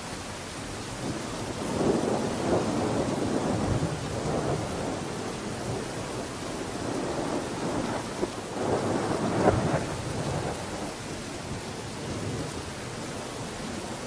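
Steady hissing noise with low rumbling swells, about two seconds in and again about nine seconds in, like rain with thunder.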